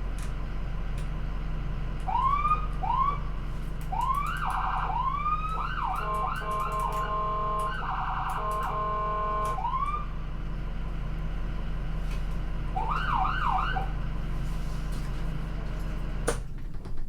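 Ambulance driving with a steady low engine and road rumble, its siren giving short rising whoops from about two to ten seconds in, along with a held steady tone, then three quick whoops near fourteen seconds. The recording ends abruptly near the end.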